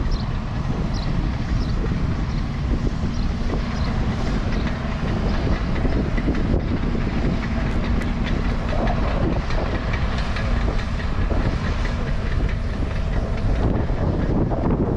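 Strong wind buffeting the microphone: a loud, steady, rough rumble.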